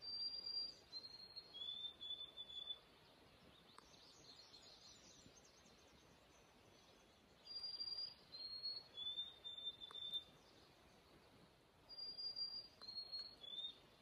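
A songbird singing the same short whistled song three times, each a few clear notes stepping down in pitch and ending on a longer held note.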